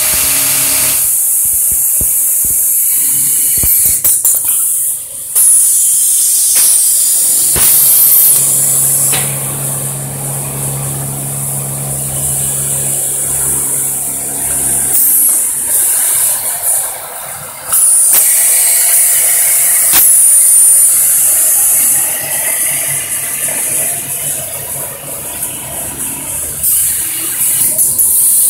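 Automatic circular-hemming sewing units running, with a loud steady hiss of compressed air throughout. A sewing motor hums steadily from about 9 to 15 seconds in, and a few sharp clicks come through.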